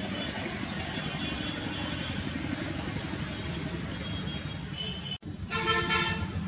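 Steady low background rumble. About five seconds in it breaks off abruptly, and a short pitched sound with several steady overtones follows for about half a second.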